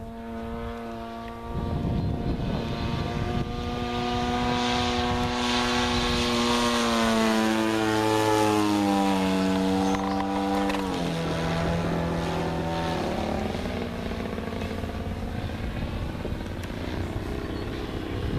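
RC aerobatic airplane's engine and propeller running in flight, one steady buzzing note. The note falls in pitch about seven seconds in, drops again near eleven seconds, and fades into a rushing noise as the plane moves away.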